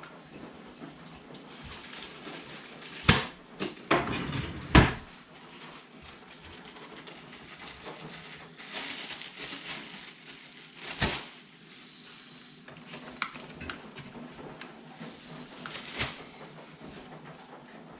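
Kitchen handling noise as leftover raw meat is bagged up: a plastic bag crinkling and rustling, with several sharp knocks and clatters, the loudest cluster about three to five seconds in and another about eleven seconds in.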